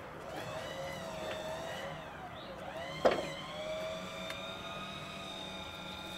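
An engine runs at a steady speed, its pitch sagging briefly once as if taking a load. One sharp knock comes about three seconds in.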